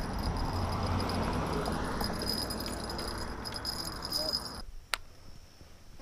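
Rustling and light jingling of gear being handled over a steady high insect chirring. The sound drops away suddenly near the end, followed by a single sharp click.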